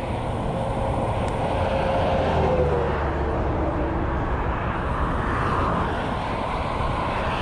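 Wind rushing over the microphone of a bicycle moving fast downhill with a tailwind: a steady, loud roar with a deep low rumble.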